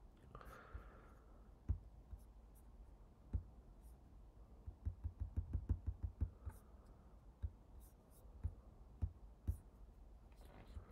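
Faint computer-mouse clicks and light knocks on a desk while a line is drawn and edited on screen, with a quick run of small taps about five to six and a half seconds in.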